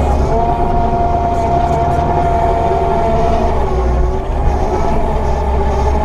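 Skid steer's diesel engine running under load, heard from inside the cab, with a heavy low rumble and a steady hydraulic whine. The whine sags in pitch about three and a half seconds in, then recovers as the machine works the dozer blade.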